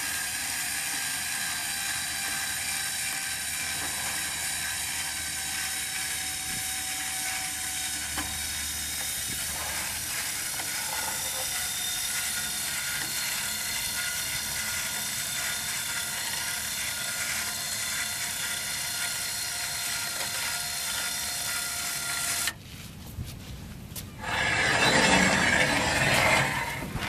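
Battery-powered electric winch running steadily under load with a whine as it hoists a heavy myrtlewood root section on chains. It cuts off about 22 seconds in, and a few seconds of louder, rough noise follow near the end.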